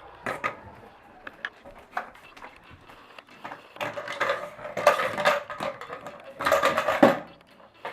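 Cat treat toy clattering and rattling as a husky puppy knocks it around. Scattered clicks, then two longer runs of clatter about four and six and a half seconds in.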